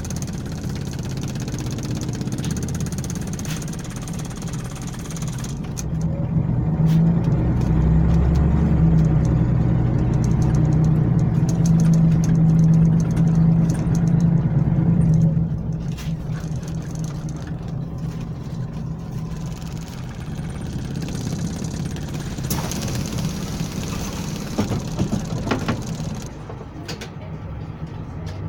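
Scania L94UB city bus engine and ZF automatic drivetrain heard from inside the cabin while driving. The low engine drone swells louder about six seconds in, holds for about ten seconds as the bus pulls under load, then drops back to a quieter steady drone, with light rattles near the end.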